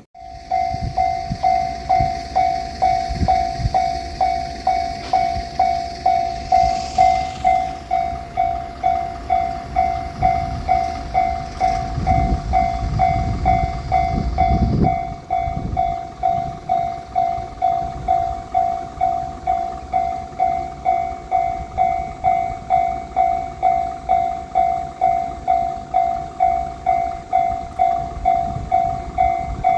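Japanese railroad crossing alarm ringing its repeated electronic 'kan-kan' bell in an even rhythm. Under it a train rumbles past, loudest about halfway through.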